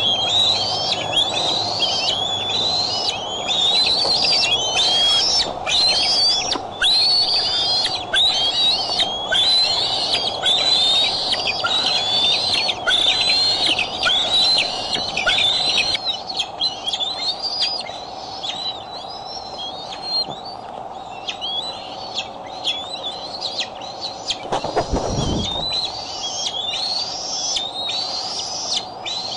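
Bald eagle calling: a long run of high, thin rising whistles, about two a second, that thin out about halfway through and pick up again near the end. A steady low hum runs under the calls, and there is a single dull thump about three-quarters of the way in.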